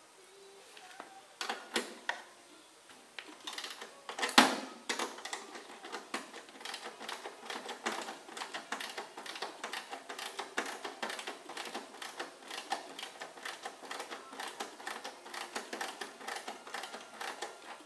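Hand-tool work at an ultralight's wheel hub: a rapid run of small clicks, a few a second, with one louder knock about four seconds in.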